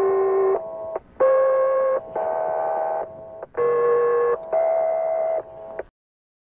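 Electronic music: a string of steady held chords, each lasting under a second and changing pitch from one to the next, with short breaks between them, that cuts off suddenly near the end.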